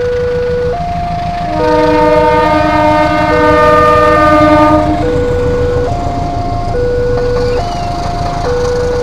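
Level-crossing electronic warning alarm alternating between a low and a high tone, each held just under a second. A diesel locomotive's horn sounds one long chord from about a second and a half in until about five seconds, louder than the alarm.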